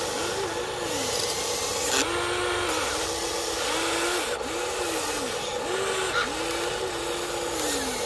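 Electric motors of a Huina 1593 remote-control excavator whining as the boom and bucket move. The pitch rises, holds and drops about once a second over a steady hum, with a few short scraping knocks.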